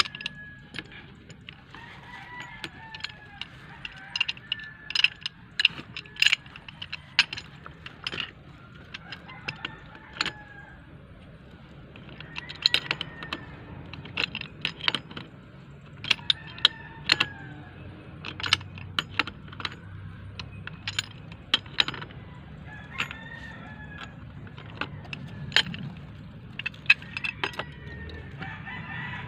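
Irregular metallic clicks and clanks of a pipe wrench gripping and turning the threaded fittings at a water meter connection. Chickens cluck in the background.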